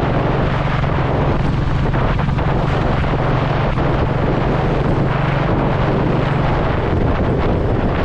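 Royal Enfield Classic 350's single-cylinder engine running steadily under way, with heavy wind rushing over the microphone.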